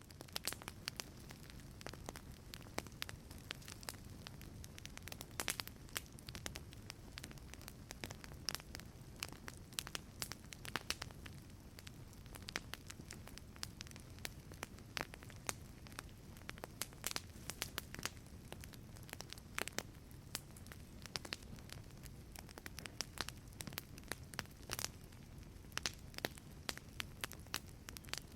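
Wood fire crackling in a fireplace: frequent, irregular sharp pops and snaps over a steady low rumble of the burning fire.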